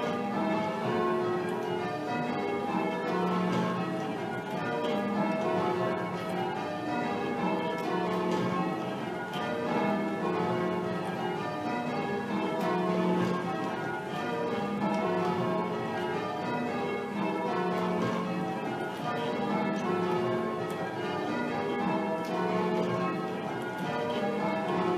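A ring of church tower bells rung full-circle in called changes: a steady, even stream of strikes, each bell sounding in turn in a repeating order.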